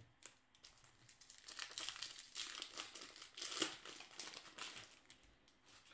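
A crinkly plastic-foil wrapper of a 2016 Bowman baseball card pack being torn open and crumpled in the hands. The crackling builds about a second in, is loudest around the middle, and fades near the end.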